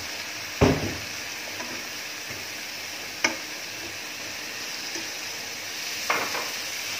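Sautéing garlic, onion and tomato sizzling steadily in a pan while being stirred, with a utensil knocking against the pan three times, the loudest about half a second in, the others about three and six seconds in.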